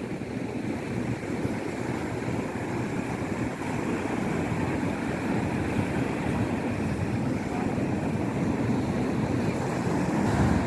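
Sea surf washing in, a steady rushing noise, with wind buffeting the microphone.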